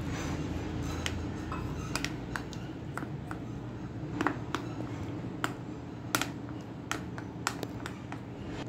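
A spoon clicking irregularly against the sides of a bowl as gram-flour (besan) batter is stirred and beaten smooth with water, over a low steady hum.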